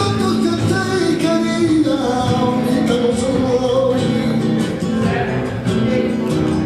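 Music: a voice singing over guitar accompaniment.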